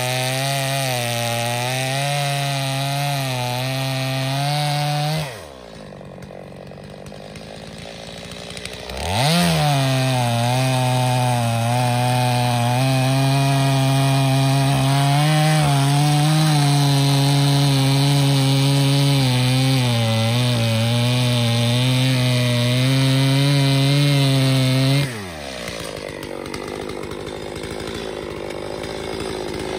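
Two-stroke chainsaw cutting through a large sycamore round at full throttle. It drops to idle about five seconds in, revs back up about four seconds later for a long steady cut, then falls back to idle near the end.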